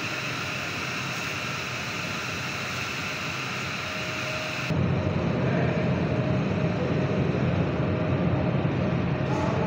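Steady drone of dairy plant machinery, a hiss with a faint steady hum. About halfway through it changes abruptly to a louder, deeper rumble.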